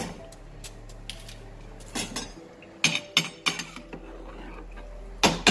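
Long metal spoon stirring rice in an aluminium pot of hot water, clinking and scraping against the pot in scattered knocks, a cluster in the middle and the loudest near the end.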